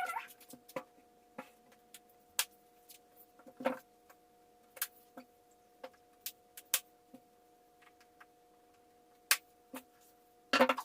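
Irregular sharp plastic clicks and knocks as the sections of a detachable hula hoop are handled and snapped together, over a faint steady hum.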